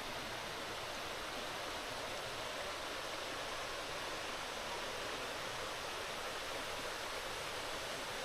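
Steady rush of running water from a creek, even and unbroken.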